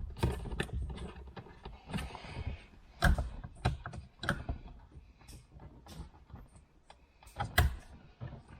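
Plastic interior trim panel being pressed back into place: a string of irregular clicks and knocks as its clips snap in and the panel is handled.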